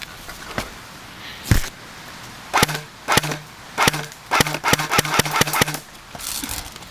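Airsoft electric guns firing semi-auto single shots, each a sharp crack with a short low hum. A few spaced shots come in the first three seconds, then a quick string of about eight shots around the middle.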